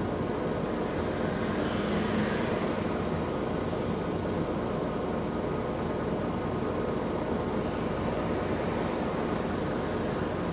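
Steady interior cabin noise of a MAN Lion's City G articulated city bus under way: an even engine and road hum with no sudden sounds.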